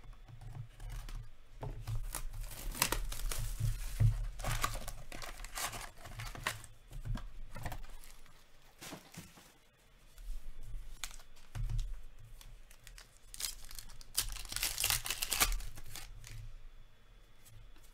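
Foil trading-card pack wrappers being torn open and crinkled by hand, in two main bursts of tearing about two seconds in and again near the end, with small handling rustles and ticks between.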